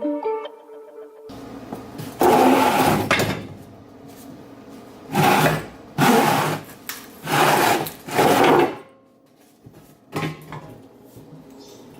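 A power tool run in five short bursts, the first the longest, while suspension parts are being unbolted. A short chiming music sting ends just before.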